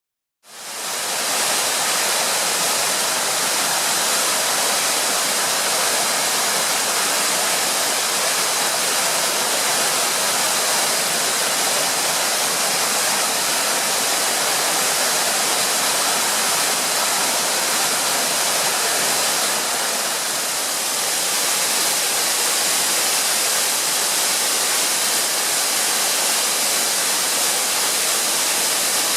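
Steady rushing of a 50 m three-tiered waterfall, an even hiss of falling water strongest in the high range. It fades in over the first second, then holds constant.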